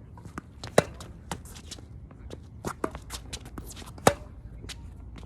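Tennis ball play: two loud racket strikes about three seconds apart, with lighter knocks of bouncing balls and footsteps on the court in between, over a low rumble of wind.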